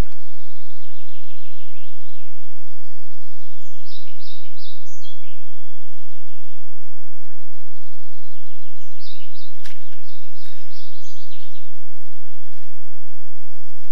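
A songbird singing in short phrases of quick repeated high notes, with a steady low hum underneath and a couple of sharp clicks about two-thirds of the way through.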